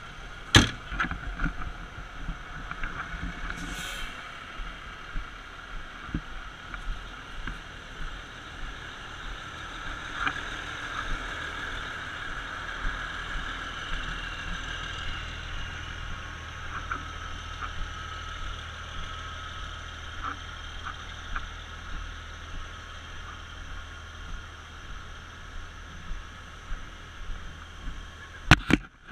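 Fire engine tanker's engine running steadily, with a sharp knock about half a second in and two quick knocks near the end.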